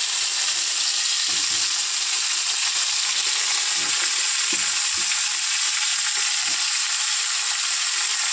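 Whole slit brinjals frying in hot mustard oil in a kadhai, with a steady sizzle. A few soft knocks come as more pieces are set down in the pan.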